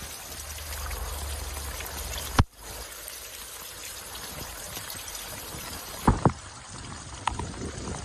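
Water trickling and running at a partly frozen waterfall, still flowing behind the icicles. A sharp click comes a little over two seconds in, and two knocks about six seconds in.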